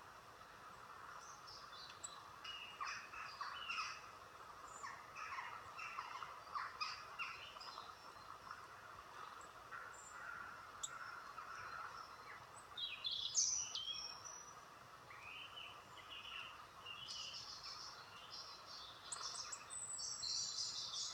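Recorded woodland birdsong played faintly through a tablet's speaker: many short chirps and calls, starting about two seconds in, with a louder flurry about two-thirds of the way through and more calls near the end.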